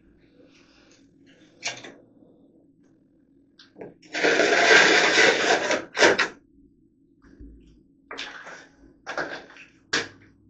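Drywall knife scraping joint compound: a series of short scrapes, with one long scrape of about two seconds starting about four seconds in.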